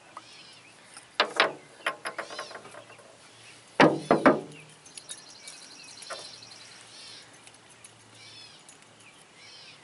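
Metal power steering pump parts clinking and knocking as they are handled and set down on a steel trailer bed, loudest about four seconds in. Birds chirp throughout, with a quick trill in the middle.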